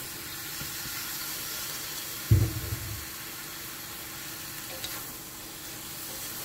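Shredded cabbage sizzling in a hot wok as a wooden spatula stirs it through the stir-fry, with one loud low thump about two seconds in.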